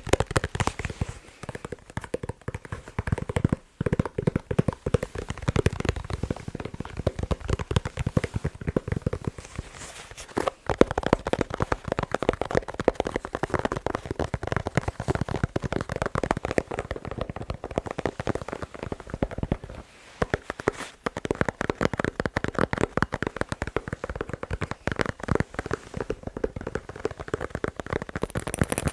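Fast ASMR tapping on a ball: a rapid, dense run of taps with a few brief pauses.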